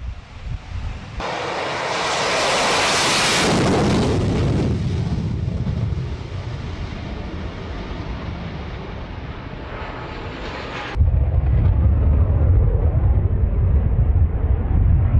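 Jet engine of a Sukhoi S-70 Okhotnik stealth drone on takeoff and climb-out: a loud, even jet noise sets in suddenly about a second in and eases after a few seconds. It changes abruptly to a heavy low rumble about eleven seconds in.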